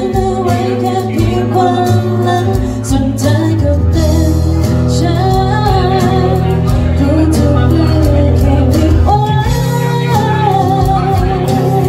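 Woman singing into a handheld microphone over a live band, amplified through a PA sound system, with steady bass notes underneath.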